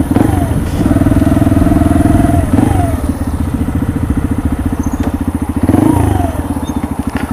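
Benelli motorcycle engine running at low speed. It is held at steadier, higher revs for about a second and a half, then drops back. About six seconds in, a short throttle blip rises and falls.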